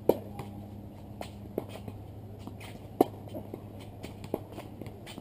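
Tennis rally on a hard court: a sharp racket-on-ball hit right at the start and another about three seconds in, with fainter ball bounces and distant hits in between, over a low steady hum.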